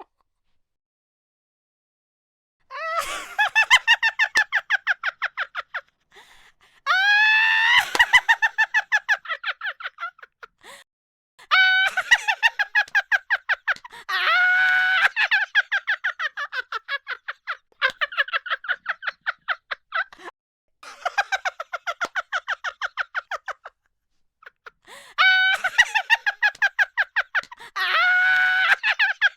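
A person laughing hard in bouts of rapid, high-pitched ha-ha-ha pulses, each lasting a few seconds, with short pauses between them. The laughter begins after about two and a half seconds of silence.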